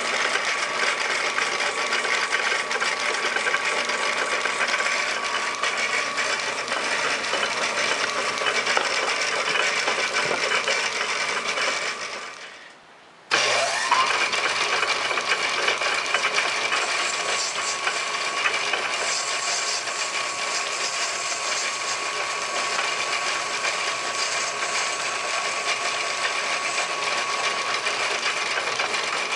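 Metal lathe running, turning a cast brass piston blank on a mandrel: a steady machine whine over a hiss. It breaks off for about a second partway through, then resumes.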